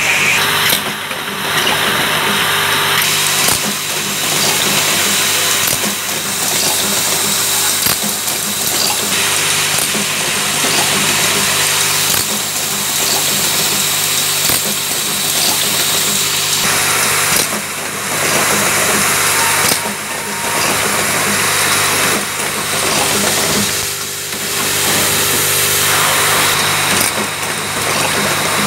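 Automatic switch assembly machine running: vibratory bowl feeders hum steadily while small plastic switch parts rattle and hiss along the tracks, with brief dips every few seconds.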